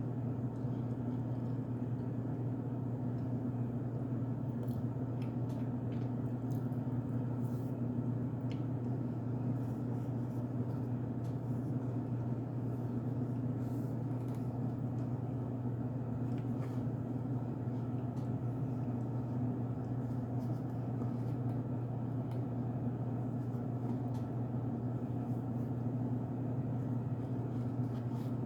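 A steady low hum of a motor or appliance throughout, with faint scattered crunchy clicks of someone chewing cornstarch.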